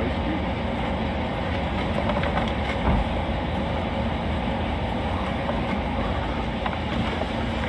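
Steady low hum of a stopped patrol car idling, heard from inside its cabin, with a small knock about three seconds in.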